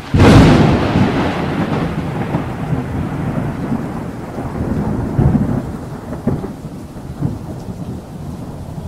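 A thunderclap breaks suddenly at the start and rolls on as a long rumble that slowly fades, swelling again a few times, over steady rain.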